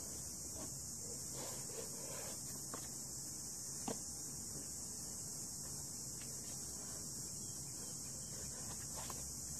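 A steady high hiss with a faint low hum, broken by a few soft knocks and scuffs of a climber's hands and shoes on the rock. The sharpest knock comes about four seconds in.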